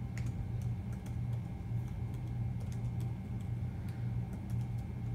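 Typing on a Chromebook laptop keyboard: scattered, irregular light key clicks over a steady low hum.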